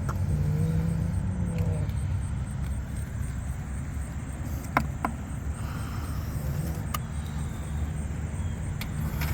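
A steady low rumble, with a few short sharp clicks about halfway through and again near the end.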